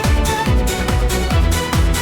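Electronic dance music with a fast, steady kick drum beat under held tones.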